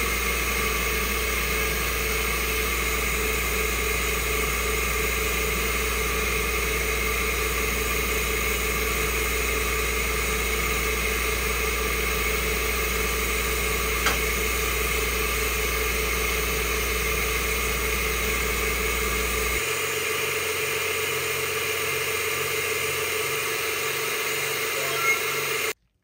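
AtomStack laser engraver running while it engraves: a steady machine hum. The low end shifts to a different, patterned sound about twenty seconds in, there is a brief click partway through, and the sound cuts off abruptly near the end.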